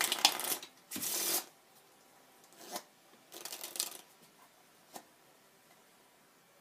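A deck of playing cards shuffled by hand in four short bursts, the loudest two in the first second and a half, then a single light tap about five seconds in.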